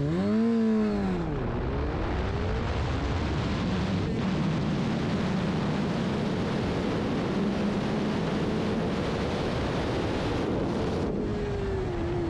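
Suzuki GSX-R 750 inline-four engine revving and launching from a standstill. The revs drop sharply as the clutch bites, a slight bog in first gear, then the engine pulls hard up through the gears under heavy wind noise on the onboard microphone. The engine note falls near the end as the throttle is backed off.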